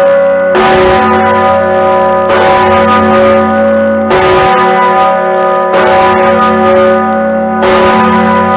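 The Anzac Bell, a large swung tower bell, struck by its clapper about every two seconds, five strikes in all. Each strike rings on in many overlapping tones over a low hum, and the ringing runs on into the next strike.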